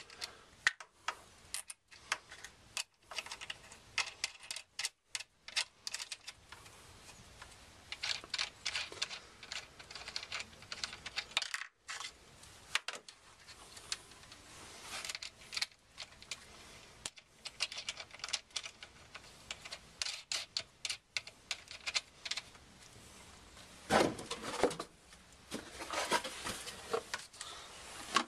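Small metallic clicks, taps and rustles of hands fastening wire ends onto the threaded terminal posts of a 12-volt marine battery, in irregular bursts, with a louder cluster near the end.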